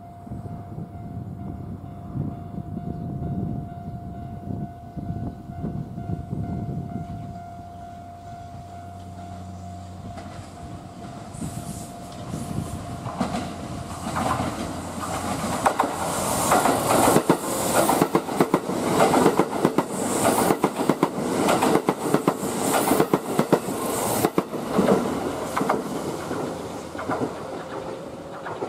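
A Kintetsu limited express electric train passing through the station at speed without stopping. It is heard approaching, then runs past with a rapid clatter of wheels over the rail joints for about ten seconds, and eases off near the end.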